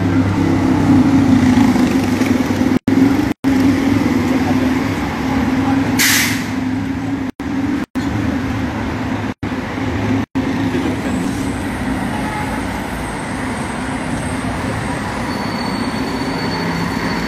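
City street traffic with a heavy vehicle's engine running close by, a steady low hum under the street noise, and a short sharp hiss about six seconds in. The sound cuts out to dead silence for a moment about six times in the first ten seconds: dropouts from a faltering live-stream connection.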